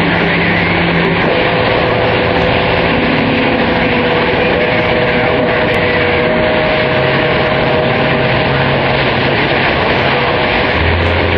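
Loud, steady static hiss from a CB radio receiver on 27.025 MHz between transmissions, with a few faint steady whistles from other stations' carriers mixed in.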